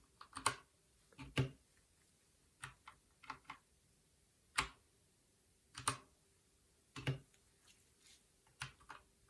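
Keys on a Keychron K2 V2 mechanical keyboard with Gateron Brown switches being pressed one at a time, about one clack a second, some heard as quick double clicks as the key goes down and comes back up.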